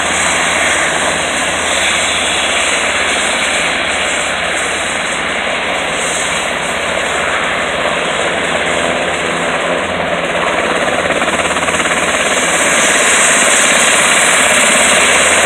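A Sikorsky S-92A helicopter taxiing with its main rotor turning: a loud, steady rush of rotor and twin turboshaft engines with a high turbine whine over it, growing louder about two-thirds of the way through.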